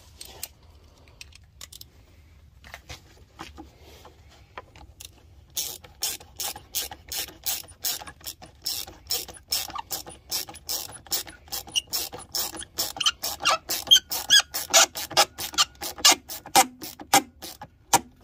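Socket ratchet on an extension clicking as it tightens a hose clamp on a car's air intake hose; a noisy ratchet. A few scattered clicks, then from about five seconds in a steady run of clicks, about three a second, that stops just before the end.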